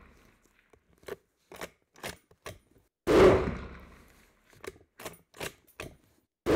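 Rifle shots fired from a bench rest: one about three seconds in, ringing out for about a second, and another right at the end, with a few light clicks of the action being worked between them. These are the first three-shot group fired to sight in a riflescope.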